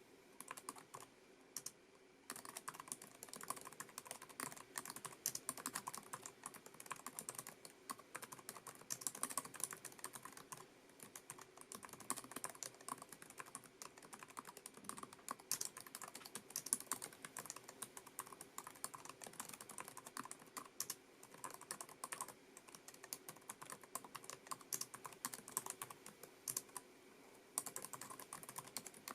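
Typing on a Lenovo ThinkPad TrackPoint Keyboard II, its low-profile scissor-switch keys making quick, irregular light clicks. There is a brief pause shortly after the start, then the typing runs on continuously.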